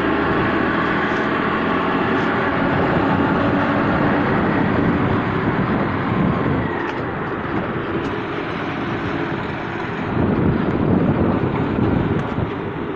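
Motorcycle engine running while riding, mixed with wind and road noise, steady with a small dip and swell in level partway through.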